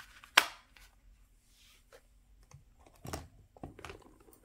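A small hard-shelled nail case snapping shut with one sharp click about half a second in. Softer clicks and taps follow near the end as small items are handled inside a leather handbag.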